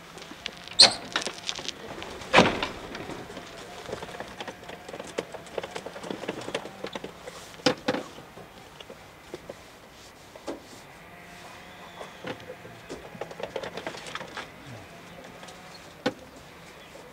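Clicks, knocks and rustling as a wooden pigeon-loft door and its latch are handled. The sharpest knocks come about a second in, at two and a half seconds, near eight seconds and again near the end.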